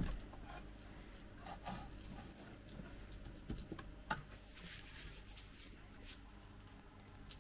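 A hand pressing wet Kalahari modelling clay onto a terrarium build and scooping more from a plastic tub: faint, scattered soft taps.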